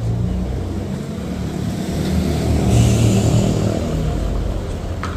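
A passing motor vehicle's engine rumbling low, growing louder to a peak about halfway through and then fading.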